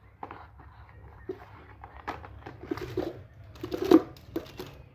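Handling of cardboard phone retail boxes and a smartphone: rustling and scraping with a series of light taps and knocks, the loudest a sharp knock about four seconds in.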